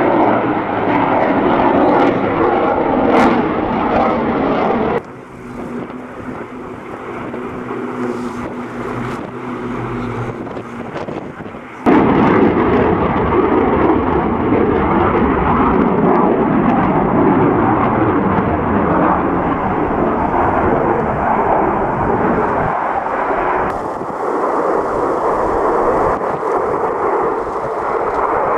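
Military jet aircraft flying a display overhead, their engines making a loud, steady rumbling noise. The sound drops abruptly to a quieter stretch about five seconds in and comes back loud about twelve seconds in.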